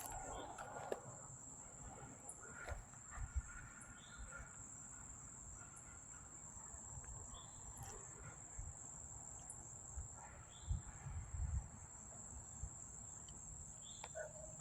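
Insects trilling in a steady, unbroken high-pitched drone, with a few faint higher chirps and scattered soft low thumps.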